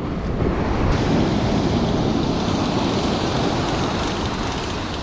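Steady rushing noise of wind on the microphone mixed with surf washing onto the beach, with no other distinct event.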